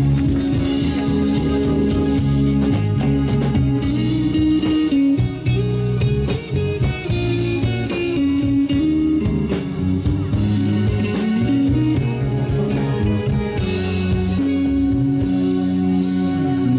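A rock band playing live with no vocals: electric guitar lead over bass and drum kit, with a steady beat.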